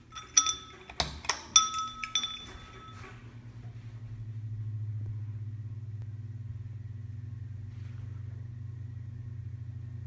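Pull chain of a 2007 Craftmade Contractor's Design ceiling fan being pulled, the switch clicking and the chain clinking and ringing against the glass light shades during the first three seconds. The fan motor then hums, rising as the blades spin up and settling into a steady low hum with a slight rhythmic pulse, running in its reverse winter setting.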